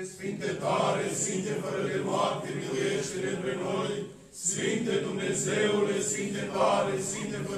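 Eastern Orthodox liturgical chant by male voices, with sung phrases over a steady held note. It breaks off briefly a little past halfway, then resumes.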